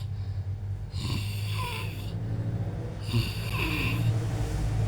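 A sleeping man snoring: two snores about two seconds apart, each lasting about a second, over a steady low hum.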